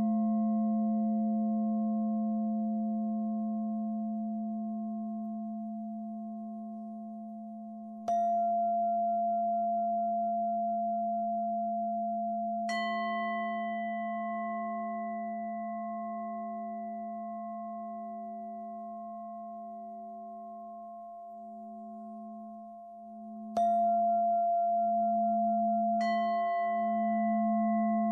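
Meditation soundtrack of long ringing metal tones, like struck singing bowls. Four fresh strikes, at about 8, 13, 23 and 26 seconds in, each ring on and slowly fade over a steady low hum, and the hum begins to pulse near the end.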